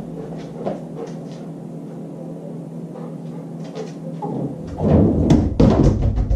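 Dog working a refrigerator door and a water bottle on a fetch cue. A few light clicks come first, then loud low knocks and rubbing in the last couple of seconds.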